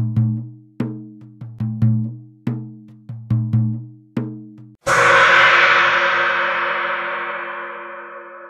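Soundtrack percussion: a drum beat of deep, ringing hits about two or three a second, then about five seconds in a single loud gong crash that rings on and slowly fades.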